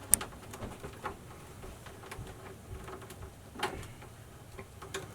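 Scattered clicks and light knocks of an electrical cable being handled and fed through a hole into a metal subpanel, with one sharp click just after the start and a duller knock a little past halfway.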